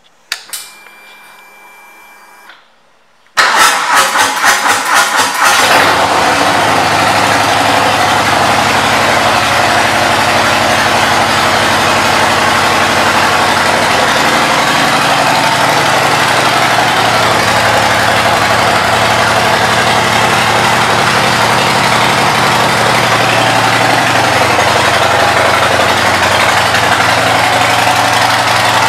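Harley-Davidson Milwaukee-Eight 114 V-twin with Vance & Hines aftermarket exhaust starting after a few seconds of faint hum. It catches with a few uneven pulses about three seconds in, then settles into a steady idle.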